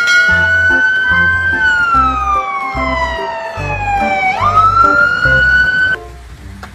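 Fire engine siren wailing: its pitch falls slowly over about three seconds, sweeps quickly back up, then cuts off suddenly about six seconds in. Background music with a steady beat runs underneath.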